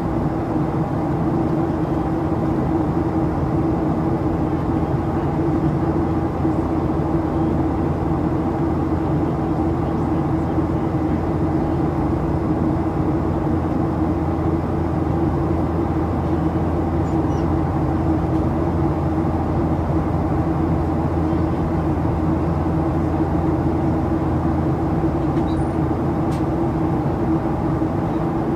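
Steady cabin drone of a Boeing 737-800's CFM56-7B engines in flight, heard from the forward cabin: rushing air noise with a low hum of several steady tones that holds unchanged throughout.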